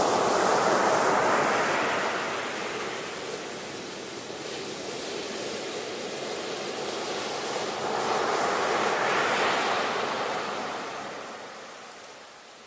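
Ocean waves breaking and washing on the shore, two waves swelling and receding, the second about eight seconds after the first and fading near the end.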